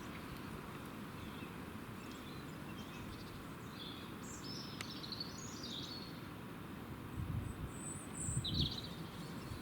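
Birds calling: a handful of short, high-pitched calls over a steady low background hum of outdoor noise, with a few low rumbles near the end.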